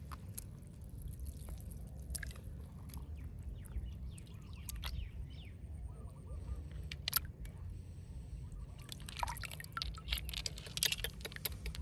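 A hand dipping into shallow water among rocks, with small splashes and the clicks of stones knocking together; about nine seconds in the splashing and clicking thicken as the stones are scooped up and lifted out of the water.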